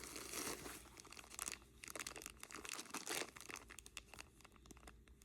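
Plastic bags crinkling and rustling in the hands, with quick irregular small clicks and crackles.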